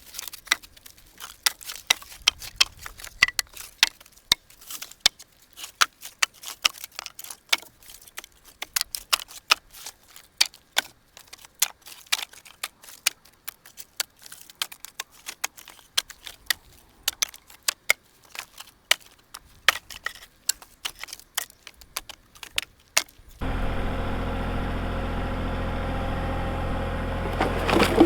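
Pieces of cut slab wood clacking and knocking together as they are handled, many sharp knocks a second. About 23 seconds in, a steady motor sound starts abruptly and keeps running, with a loud crack near the end.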